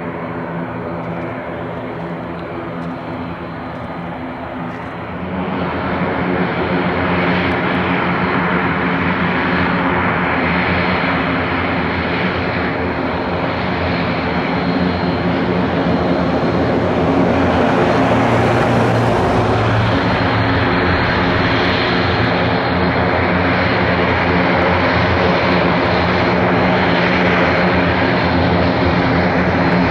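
Twin Pratt & Whitney PW127G turboprop engines and propellers of an Airbus C-295 (CC-295 Kingfisher) running as it taxis: a steady hum of several pitches over a rushing noise, which grows louder about five seconds in.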